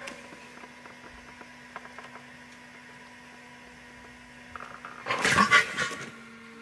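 A faint sustained note from the show's accompaniment, then about five seconds in a loud, roughly one-second burst of a man's hoarse, gasping vocal sounds, the choking noises of a man suffocating in a gas mask.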